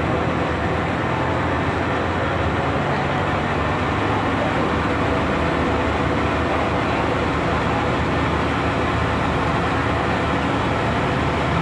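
Engine of a river passenger boat running steadily under way, a constant low drone with a dense rushing noise over it.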